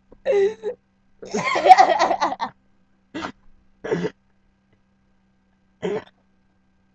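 A girl in a fit of uncontrollable laughter: a long burst of laughing about a second in, then short, gasping bursts a second or two apart.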